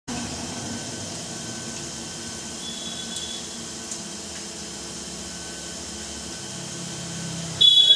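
Abrasive cut-off saw's electric motor running with the blade spinning freely, a steady whirr while the steel tube is lined up under it. Near the end a much louder, high-pitched sound starts suddenly.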